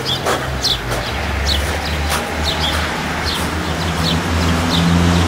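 Small birds chirping over and over in short, downward-sliding notes, several a second, over a steady low rumble of outdoor background noise.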